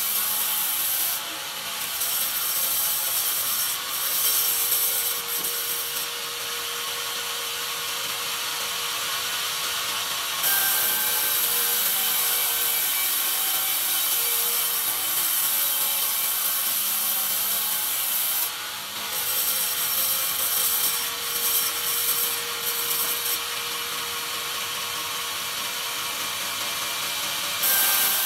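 Sawmill bandsaw blade cutting lengthwise through a pine cant on the carriage: a continuous loud hissing rasp of the blade in the wood, over a faint steady hum. The sharp top of the cutting sound shifts several times as the cut goes on.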